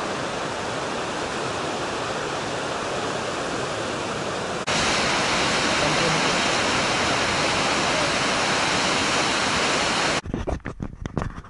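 Steady rushing of a waterfall and of the river pouring over rock above it. It gets louder about halfway through, then stops abruptly near the end and gives way to a few irregular knocks and rumbles.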